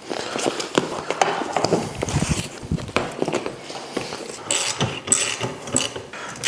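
Irregular metal clicks and clanks from hand tools and the aluminium raft frame's fittings as the frame's clamps are loosened and the frame is taken apart.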